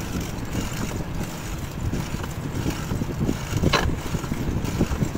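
Wind buffeting the microphone of a phone carried on a moving bicycle, an uneven low rumble, with one brief scratchy sound a little before the end.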